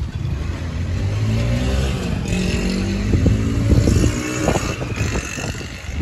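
A motor vehicle's engine running and revving, its pitch rising and shifting, with a run of short clattering knocks near the end.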